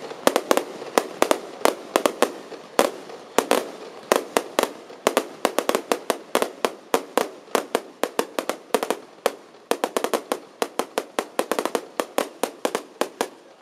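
Aerial fireworks bursting in a rapid barrage of sharp bangs and cracks, several a second, which stops near the end.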